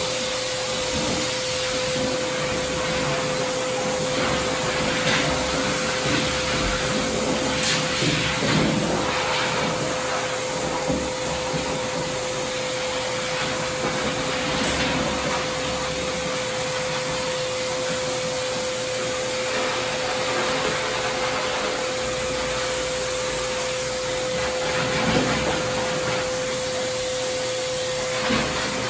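Forced-air pet dryer at a dog-wash tub running steadily, a whooshing rush of air with a constant whine from its blower motor as it dries a wet dog. A few light knocks sound over it.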